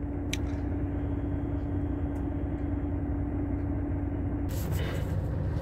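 Steady low hum of a Volvo truck's diesel engine running, heard from inside the cab. A short click comes just after the start, and a brief rustle near the end.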